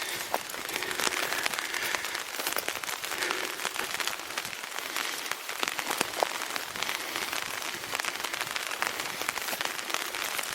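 Rain falling on an umbrella held over the microphone: a steady run of many small, sharp taps over a hiss.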